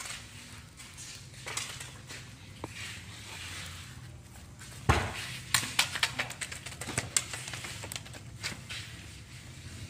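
A young macaque scrambling off a person and onto a wooden chair: a sharp knock about five seconds in, then a run of light clicks and knocks.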